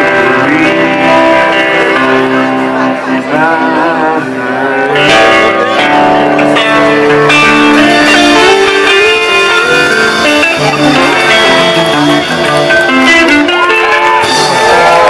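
Live blues band playing an instrumental passage: electric lead guitar over strummed acoustic guitar with cajón. Near the end the crowd starts cheering as the song closes.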